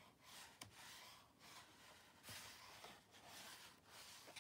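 Paper pages of a children's picture book being turned by hand: a series of faint, soft swishes and rubs.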